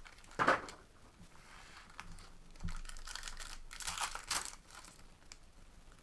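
Trading-card pack wrappers being crinkled and torn open, in short rustling bursts, with a soft thump near the middle.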